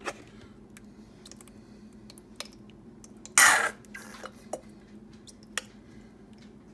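Plastic ketchup squeeze bottle being squeezed: one loud sputtering squirt of air and sauce about three and a half seconds in. A few light clicks and knocks from handling the bottle come before and after it.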